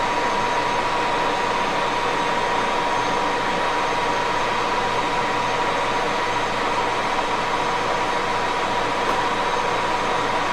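1941 Axelson gear-head engine lathe running steadily, a constant machine noise with a steady whine held at one pitch.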